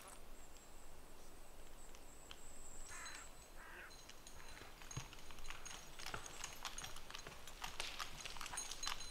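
Distant logging horse at work skidding timber through forest undergrowth: scattered faint knocks and snaps of hooves and dragged wood, busier from about halfway through, with a short call about three seconds in.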